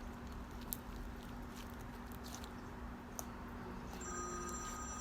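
A phone starts ringing about four seconds in, a steady electronic ring of several tones. Before that there are only faint clicks over a low room hum.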